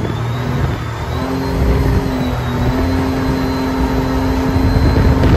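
Small jet boat's engine running steadily under way, a constant drone over the rush of water and wind past the hull.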